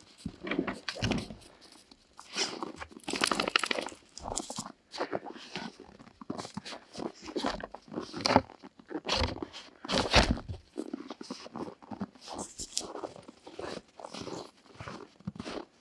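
Footsteps crunching in snow, uneven steps with short pauses, and a couple of heavier thumps past the middle.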